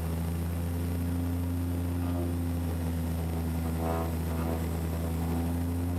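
Seaplane's turboprop engine and propeller running at a steady pitch, heard from inside the cabin: a low, even drone.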